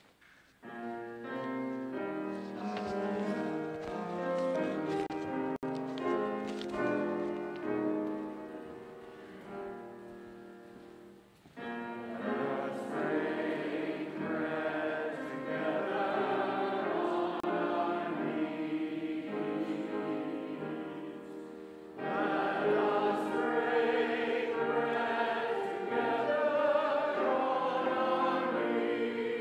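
Choir singing a sacred piece with accompaniment. It opens with held chords and grows fuller and louder about halfway through, and again near the end.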